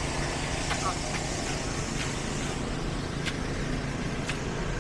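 Construction machinery engine running steadily, with a few light clicks or knocks scattered through it.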